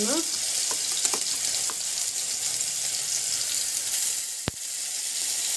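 Crushed garlic, mustard seeds and cumin sizzling in hot oil in a pan as a tempering: a steady high hiss with a few faint ticks. A single sharp click about four and a half seconds in.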